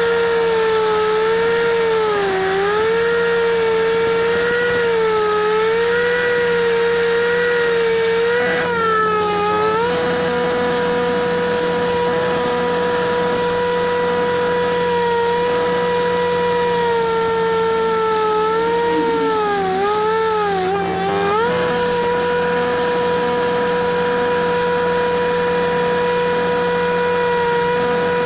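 Concrete-cutting saw running with a steady high whine, its pitch sagging and recovering several times as the blade bogs down under load, most deeply about two-thirds of the way through.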